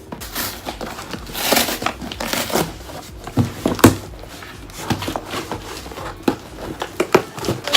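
A mailer package being opened by hand: plastic packaging and bubble wrap crinkling and tearing, in irregular rustles with sharp crackles, the loudest a little before halfway through.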